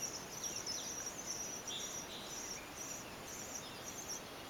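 European starling nestlings begging inside a nest cavity: faint, rapid, high-pitched chirping in irregular bursts, with a few short descending chirps in the first couple of seconds.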